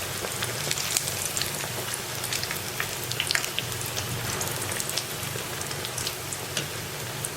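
Bread slices deep-frying in hot oil over medium heat: a steady sizzle with many small crackles and pops.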